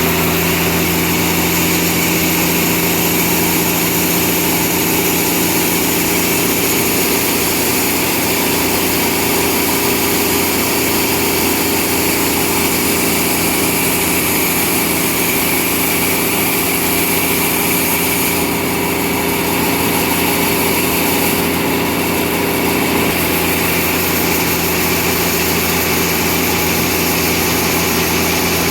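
Sawmill machinery running steadily, a continuous engine-like drone with a strong hiss over it that eases briefly a little past the middle.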